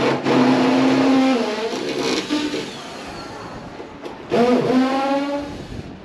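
A motor vehicle's engine running loudly in two stretches: the first lasts the opening couple of seconds, and the second, about four seconds in, rises in pitch like a rev before holding steady.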